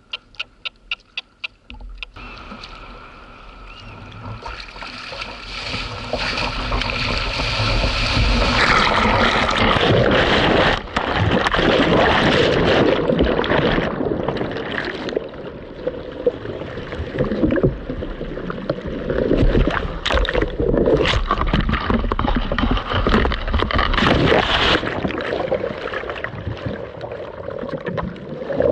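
Churning surf whitewater rushing and splashing around a camera at or under the water line, building over the first several seconds and then staying loud, with scattered sharp splashes. A quick run of ticks in the first two seconds.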